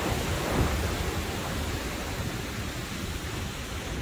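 Surf breaking on the beach with wind buffeting the microphone: a steady rushing noise over a low rumble.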